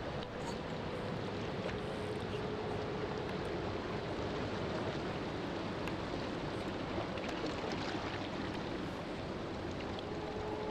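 Steady rushing noise with a faint held note under it during the first few seconds.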